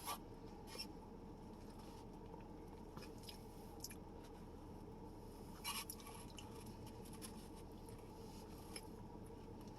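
Quiet chewing with faint wet mouth clicks over a low steady room hum, the clearest few clicks about six seconds in.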